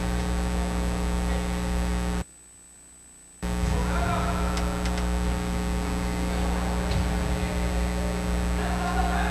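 Steady electrical mains hum over the recording, with faint distant voices and a few light clicks. The sound drops out almost completely for about a second just after two seconds in, then the hum returns.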